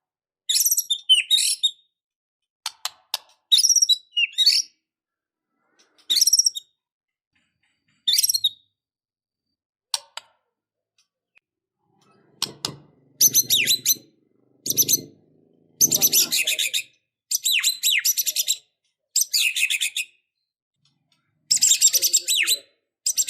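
White-rumped shama (murai batu) singing loud, varied, high phrases packed with mimicked song (full isian). Short bursts with pauses between them give way, about halfway through, to a near-continuous run of rapid phrases.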